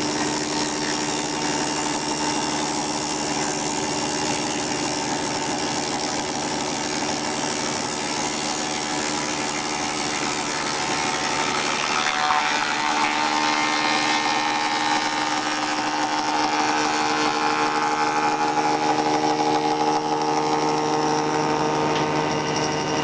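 Electric groove-milling machine running steadily, its cutter milling a dovetail slot in a rounded log. About halfway through, the pitch briefly sags and recovers and the sound gets a little louder.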